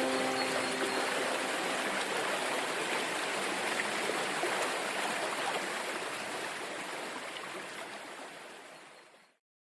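Flowing water, a steady rushing hiss that fades out gradually and goes silent shortly before the end, with the last notes of the music ringing away in the first second.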